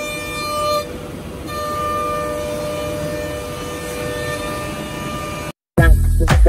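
Spindle of a Woodmaster 5-axis CNC router whining steadily over a noisy rumble as it cuts wood. The whine briefly changes about a second in, then carries on. Near the end it cuts off and music starts.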